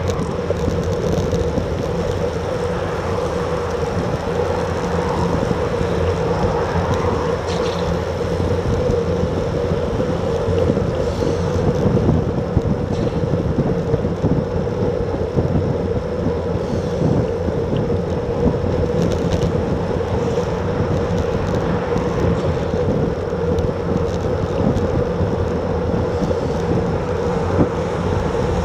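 Wind rushing over an action camera's microphone on a road bike moving at about 35 km/h, a steady noise with a low rumble underneath.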